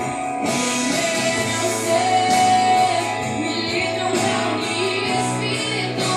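Worship song: a voice singing over instruments that include guitar, with one long held note about two seconds in.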